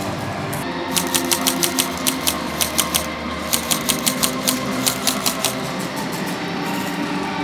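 Airsoft gun firing a rapid string of shots, about five or six a second, that stops about five and a half seconds in.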